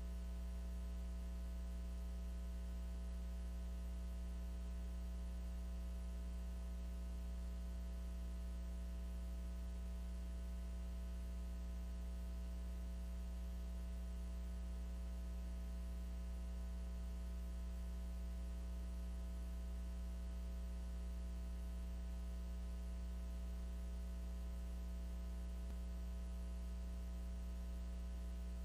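Steady electrical mains hum in the audio line: a low drone with several fainter higher tones above it.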